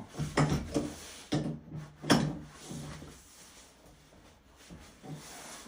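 A few sharp knocks and rattles of hand work on a shower valve as the new cartridge is tightened, the loudest knock about two seconds in.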